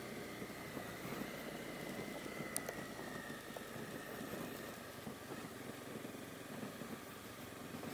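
Honda CB250R's single-cylinder engine running steadily as the motorcycle rides over gravel, faint and muffled as heard from a helmet-mounted camera microphone, with tyre noise on the loose stones.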